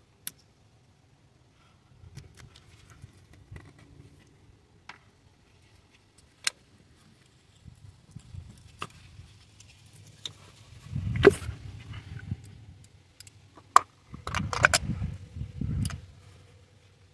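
Scattered clicks and metallic clinks of hand work on an engine: a small screwdriver releasing an ignition coil connector's locking tab, the coil being worked free, then a spark plug socket and extension going into the plug well. In the second half come two stretches of denser clinking and rattling.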